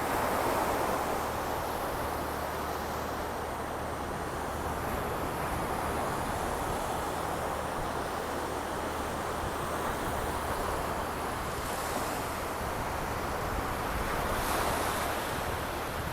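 Baltic Sea waves breaking and washing onto the shore in a steady surf, with wind buffeting the microphone.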